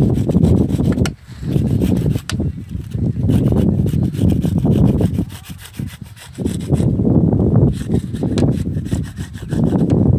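Raw green mango rubbed back and forth on a flat metal hand grater: repeated scraping strokes, with a brief pause about a second in and a longer lull around five to six seconds in.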